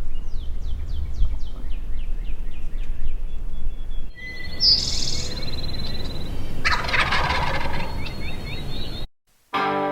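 Wild turkey gobbling once, a loud rattling burst about seven seconds in, after a quick run of descending songbird chirps, over a steady low rumble of wind. The sound cuts off abruptly about nine seconds in and music begins.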